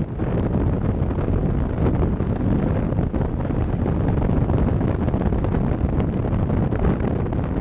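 Wind buffeting a microphone mounted on the outside of a moving safari 4x4, with the vehicle's running noise underneath: a loud, steady rumble.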